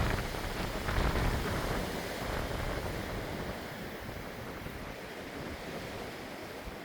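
Blizzard wind blowing hard, gusting loudly in the first couple of seconds and buffeting the microphone, then easing to a steadier rush.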